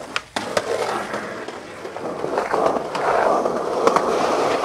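Skateboard wheels rolling over a concrete sidewalk, getting louder as the board comes closer, with a few sharp clacks of the board.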